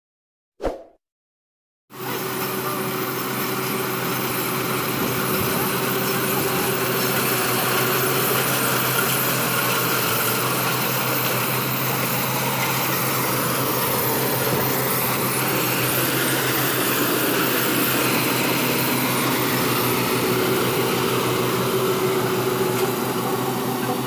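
A short click, then from about two seconds in a Yanmar AW70V combine harvester's engine and threshing machinery running steadily under load while it cuts rice.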